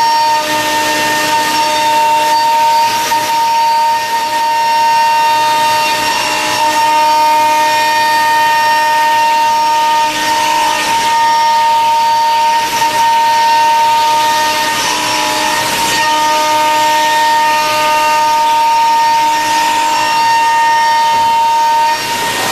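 Komo CNC router cutting aluminum plate: a steady high-pitched whine from the spindle and cutter over a hiss. The pitch briefly wavers about every four to five seconds.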